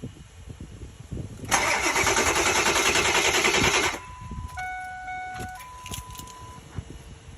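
Ford F-350's starter cranking the engine for about two and a half seconds, then stopping abruptly without the engine catching: a no-start. A few short electronic chime tones follow from the truck.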